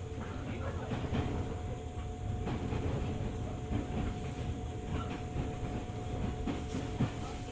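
JR 205 series 600 subseries electric train running, heard from inside the car: a steady low rumble of wheels on rail with a steady hum and scattered clicks from the rail joints, the sharpest near the end.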